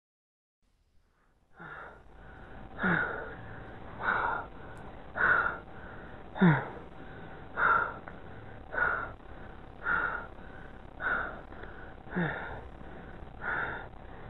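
A person's heavy, laboured breathing, starting about a second and a half in, one loud breath roughly every second and a quarter, several of them ending in a low falling groan.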